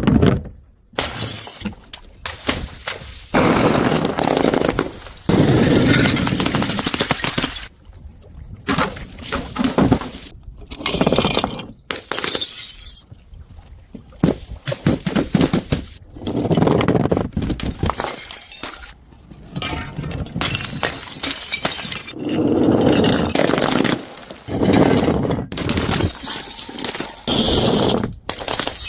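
Glass bottles breaking one after another: about a dozen separate smashes, each a sudden burst of shattering and crunching glass lasting a second or two, with short gaps between them.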